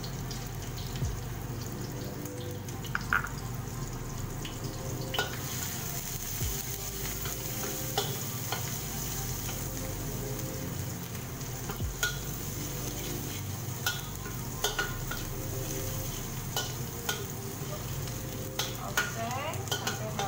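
Dried shrimp stir-frying in a steel wok: a steady sizzle, with a metal spatula scraping and clinking against the wok at irregular moments.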